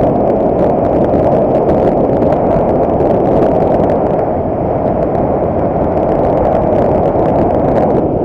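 Loud, steady rush of wind buffeting a camera microphone on a motorcycle riding at speed, mixed with engine and road noise.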